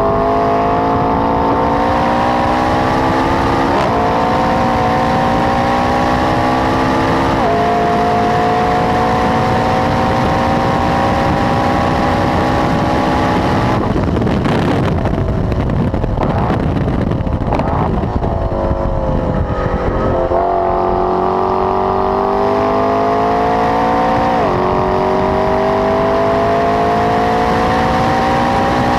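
McLaren 12C's twin-turbo V8 through a Milltek exhaust at full throttle, its pitch climbing through each gear with sudden drops at the upshifts, twice close together early on and once near the end. About halfway through it comes off the throttle for several seconds of crackling and uneven blips while slowing, then pulls hard again.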